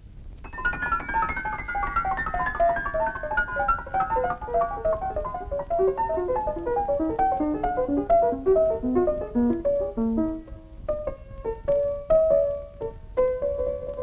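Film score piano music: a fast cascade of notes that steps steadily downward in pitch for about ten seconds, then slows into a few separate, higher notes near the end.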